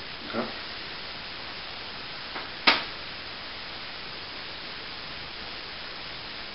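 Steady hiss of the recording, with one sharp, short click about two and a half seconds in.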